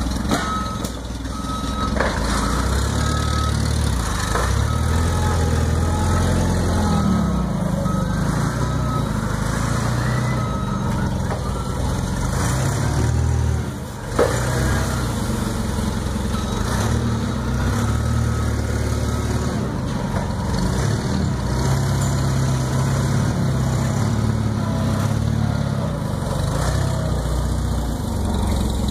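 Propane-powered Daewoo GC25 forklift engine running, its pitch rising and falling as it drives and lifts. A reversing alarm beeps repeatedly in the first few seconds.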